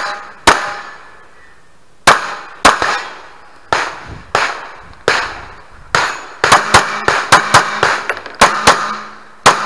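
Glock pistol firing a long string of shots, many a fraction of a second apart, with short pauses between groups of shots.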